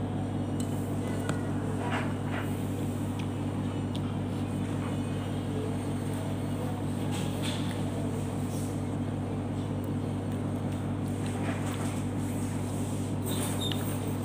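A steady low machine hum, with a few short eating noises on top as noodles are slurped and chewed, the first about two seconds in.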